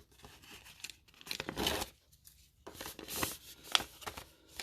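Sealed foil booster pack wrappers and paper envelopes rustling and crinkling as they are handled, in a few short bouts with sharp crackles.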